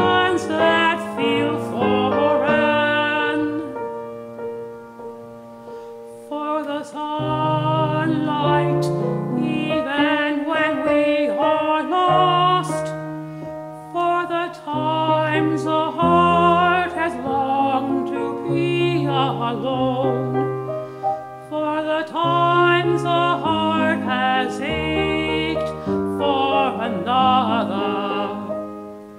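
A man singing a solo song with grand piano accompaniment, in phrases with short breaks between them.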